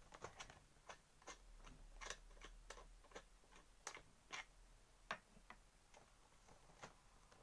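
Faint, irregular small clicks and taps as a GoPro Hero 7 Black action camera is worked loose from its packaging mount.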